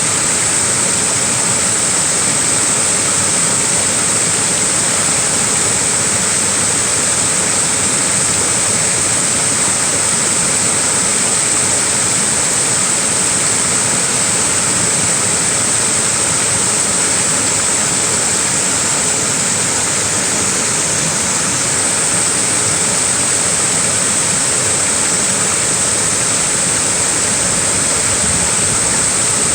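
Small waterfall: water falling and splashing in a steady, unbroken rush, with a bright hiss in the high range.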